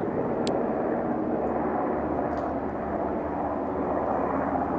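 Steady drone of a low-flying military helicopter passing overhead.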